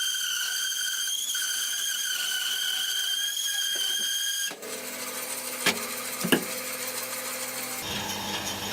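Band saw resawing an old walnut trunk: a steady high-pitched whine for the first half. About halfway the sound changes suddenly to a lower hum, with two sharp knocks.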